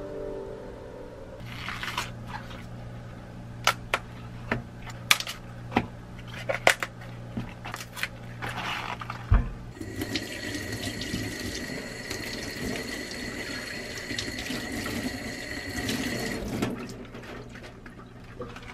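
Kitchen faucet running into a stainless steel sink for about six seconds, with a thin steady whistle over the splashing, as cabbage is rinsed under it. Before and after the water, a series of crisp snaps and clicks from cabbage leaves being handled and pulled apart.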